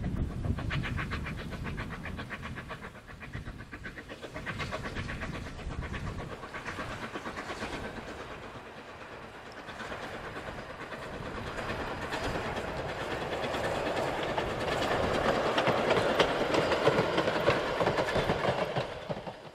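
Beyer, Peacock 2-4-0 tank locomotive No. 4 'Loch' steaming past with a short train of wagons and a coach: steam exhaust and the rhythmic clatter of wheels over the rails. It grows louder as the train draws near and is loudest near the end.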